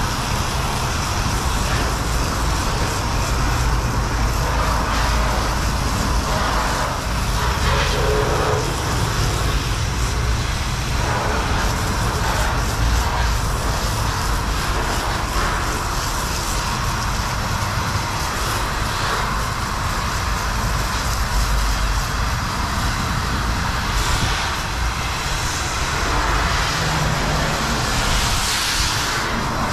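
Self-serve car wash spray wand spraying foam soap onto a pickup truck's body: a steady rushing spray over a low rumble.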